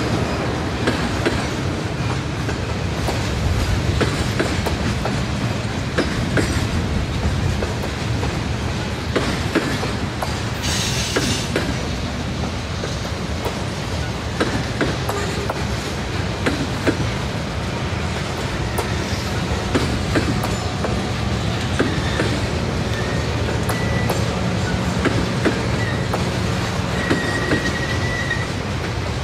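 Refrigerated boxcars of a freight train rolling past: a steady rumble of steel wheels on rail, with clicking as the wheels cross rail joints. A thin, high wheel squeal comes in briefly several times near the end.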